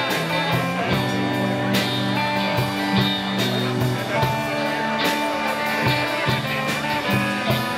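Live rock band playing an instrumental passage: electric guitar through a Mesa/Boogie combo amp, with held notes over regular drum hits.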